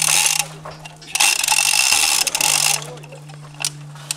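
Rapid mechanical rattling in two bursts, a short one at the start and a longer one of nearly two seconds about a second in, over a steady low hum.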